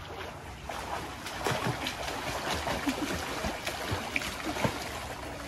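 Swimming-pool water splashing and sloshing around a person moving in it, with a run of small splashes and gurgles.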